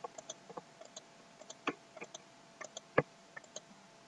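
Irregular short clicks and taps of a computer mouse and keyboard in use, the sharpest about three seconds in, over a faint steady hum.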